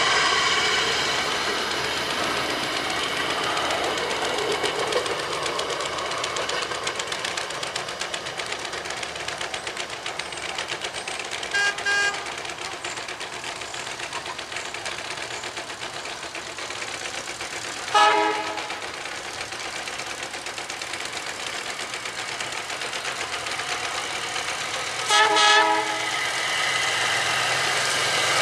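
A rail speeder's small engine passes close and fades away, and engine noise builds again near the end as more speeders approach. Short horn toots sound over it: a double toot about twelve seconds in, a single toot at eighteen seconds, and a longer double toot around twenty-five seconds.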